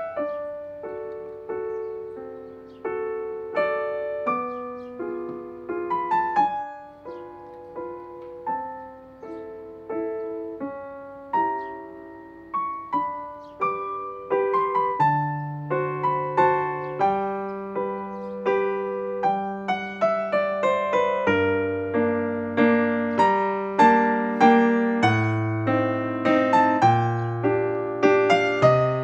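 Background piano music: a slow piece of single struck notes that gets fuller and louder, with low bass notes coming in about halfway through.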